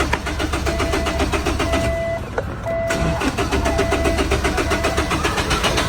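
A car's starter cranking the engine over without it catching: a no-start. The cranking breaks off briefly a little over two seconds in, then resumes. A beeping tone sounds on and off over it.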